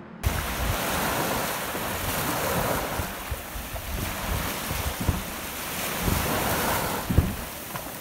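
Sea waves breaking and washing up a beach, with wind buffeting the microphone in irregular low thumps. The surf cuts in suddenly just after the start.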